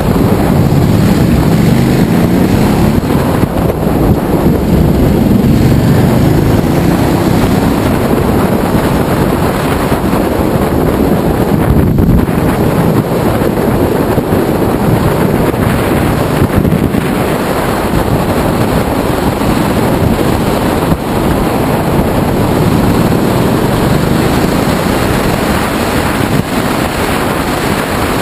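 Steady wind rushing over the microphone of a Ducati Multistrada motorcycle on the move, with the bike's engine running underneath.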